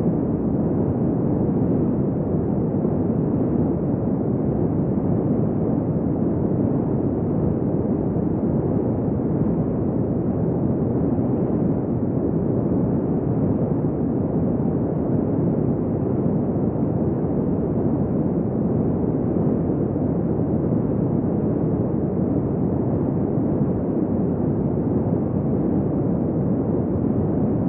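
Desert wind blowing hard and steadily: a dense, dull, low rush of noise that holds an even level without gusts or lulls.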